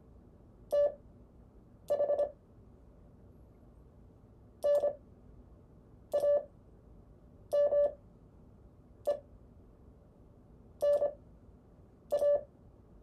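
Morse code (CW) tone sending single characters at fast 25 wpm character speed with long Farnsworth gaps between them, a group of dits and dahs every second and a half or so. It is a clean mid-pitched beep.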